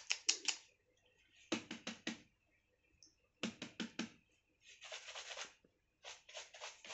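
Short clusters of sharp clicks, four or five quick clicks at a time, repeating every second or two.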